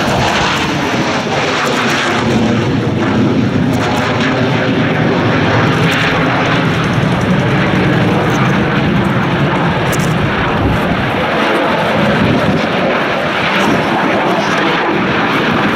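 A single-engine J-10 fighter jet flying past, its engine noise loud and steady throughout.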